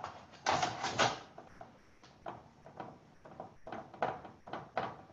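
A felt-tip marker drawing on paper: a series of short, quick strokes as the panes and cross lines of a small window are drawn in. The strongest strokes come in the first second.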